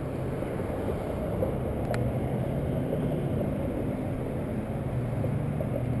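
Steady low rumble of road traffic from cars moving along a busy road, with a single small click about two seconds in.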